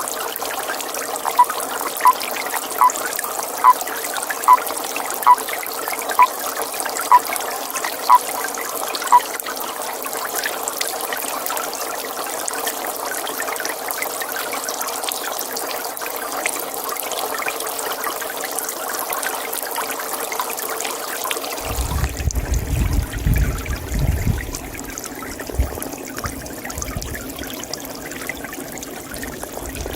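Pond water trickling steadily, with a toad calling a short note about ten times, a little under a second apart, over the first nine seconds. Around two-thirds of the way in, the trickle turns duller and a low rumble comes in for a few seconds.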